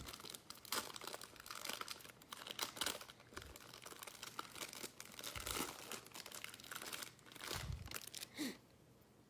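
Foil trading-card pack wrappers crinkling and tearing as packs are opened by hand, a dense irregular crackle that stops about eight seconds in.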